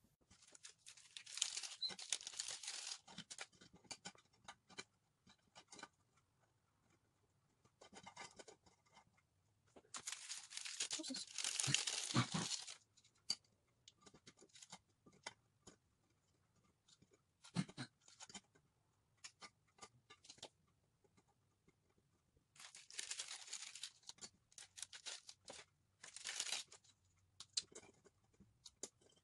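Plastic wrapping around chocolate graham crackers crinkling and tearing in several short bursts, the loudest about ten to twelve seconds in, with scattered light clicks and knocks in between.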